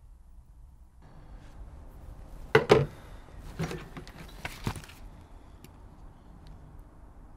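Paper handling: the pages of a sketchbook being turned and rustled. Two sharp rustles come about two and a half seconds in, followed by a few softer ones over the next two seconds, over quiet room tone.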